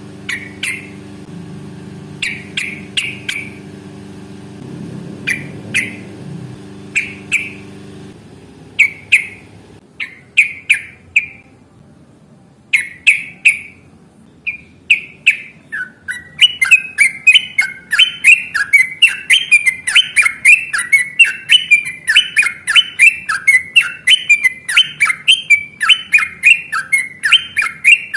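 Yellow-vented bulbul (trucukan) calling: separate short chirps spaced a second or so apart, then from about sixteen seconds in a fast, unbroken rolling chatter of notes. A faint steady hum lies underneath for the first eight seconds.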